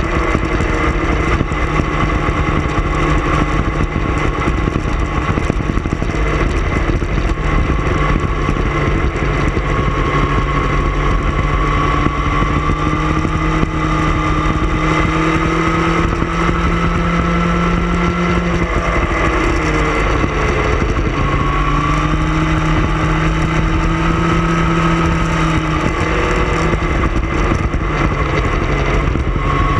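Sport motorcycle engine running at steady cruising revs under a constant rush of wind noise; the engine pitch drops off briefly about twenty seconds in, then climbs back as the rider gets back on the throttle.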